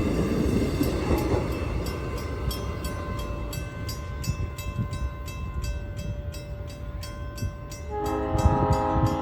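South Shore Line electric commuter train rumbling past, fading away. From about two seconds in a bell rings in a quick steady rhythm, and near the end a train's chord air horn sounds.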